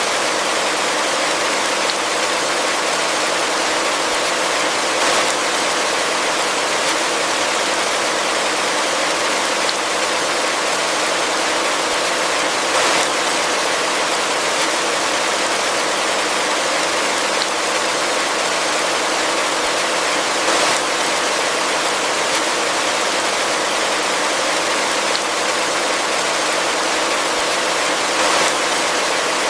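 Heavy rain falling steadily in a forest, an even hiss of dense rainfall with a faint brief swell about every eight seconds.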